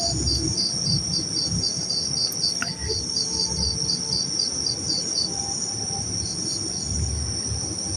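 Crickets chirping at night: a steady high trill with a second insect's pulsed chirps at about four a second, which stop about halfway through and return faintly near the end.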